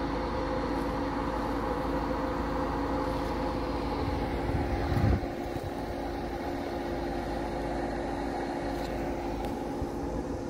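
A motor vehicle's engine running steadily with a low hum, and a short low thump about five seconds in.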